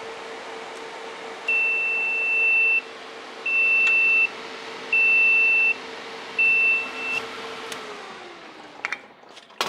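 Buzzer flow alarm on a homemade TIG torch coolant chiller beeping four times, each about a second long, which signals that coolant flow has stopped with the pump's fuse pulled. Under it the chiller's cooling fans hum steadily, then wind down near the end as the power goes off, followed by a few clicks.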